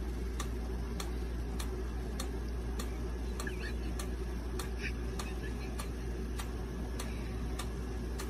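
Steady ticking like a clock, a little under two ticks a second, over a low steady hum.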